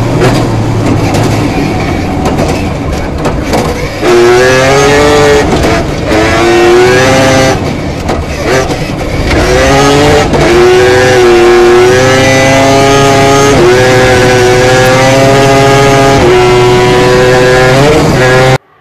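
Naturally aspirated three-rotor Mazda 20B rotary engine of a rally Mazda RX8, heard from inside the cockpit at full throttle, its pitch climbing and dropping again and again through the gears, with a few brief dips in level. It cuts off suddenly near the end.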